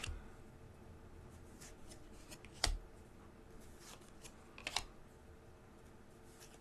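Trading card pack being opened and its cards handled: a few faint, sharp crinkles and snaps, the loudest about a third of the way in and another a little past halfway.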